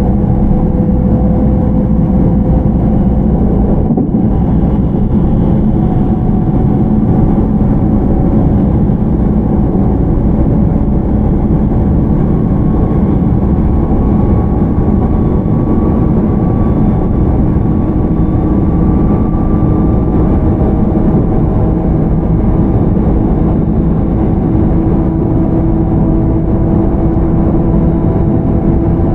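JR 313 series electric train running, heard from inside motor car MoHa 313-9: steady wheel and rolling noise with the faint whine of its Toshiba IGBT inverter and traction motors. The whine rises slowly in pitch, a sign of the train gaining speed under power.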